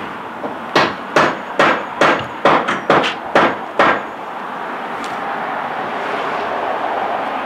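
A hammer striking about eight times in quick succession, roughly two blows a second, then stopping. A steady hiss follows.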